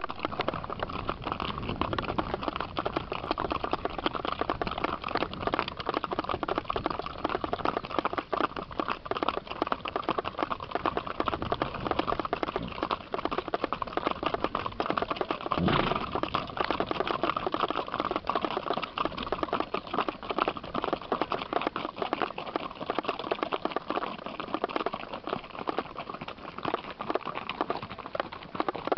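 Hooves of several Peruvian Paso horses clip-clopping steadily along a dirt and gravel road, the ridden horse's hoofbeats the closest, with one heavier knock about halfway through.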